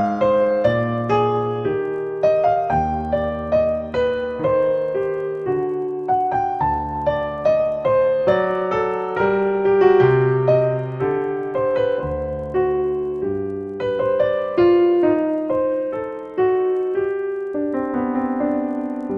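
Solo piano background music: a gentle, flowing melody over a steady bass line.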